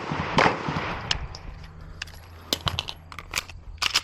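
9mm Glock 19X pistol firing a string of shots at paper targets, irregularly spaced: a few single shots, then quick pairs and a rapid cluster near the end.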